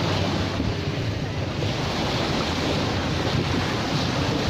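Steady wind buffeting the phone's microphone, over the continuous wash of sea surf.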